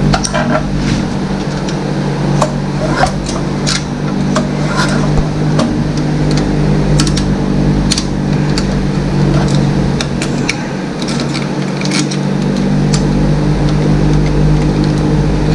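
Scattered light metallic clicks and scrapes of a screwdriver working at a stuck intake valve and its spring in the valve chamber of a flathead Briggs & Stratton 5 hp engine, over a steady low hum.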